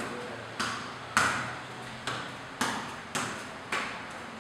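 A football being juggled and played with bare feet: about six sharp slaps of foot on ball, spaced roughly half a second to a second apart, each with a short echo.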